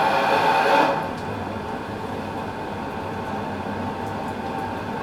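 Propane-and-air burner flame in a drilled pipe, burning with a steady noise and a whistle of several tones; about a second in it drops suddenly to a quieter, duller rush with a low hum.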